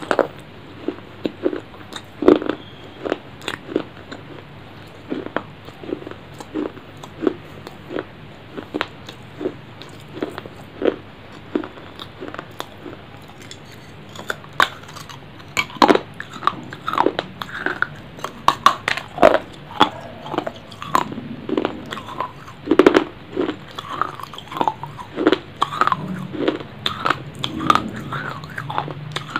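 A person biting and chewing food right at a microphone: regular chewing clicks a little faster than once a second, then a fresh bite about halfway through, after which the chewing turns louder and busier.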